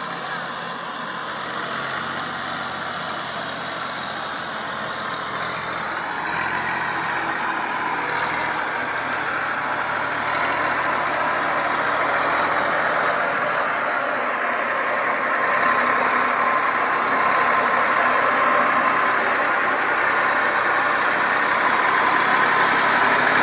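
Farm tractor's diesel engine running steadily, slowly growing louder as the tractor drives up close.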